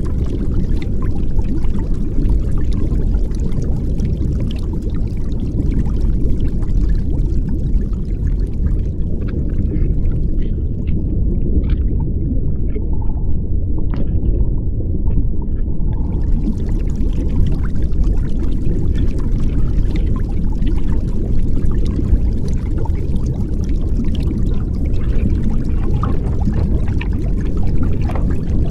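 Underwater ambience picked up by an action camera's microphone inside its waterproof housing: a steady, muffled low rumble of moving water, with a few faint clicks around the middle.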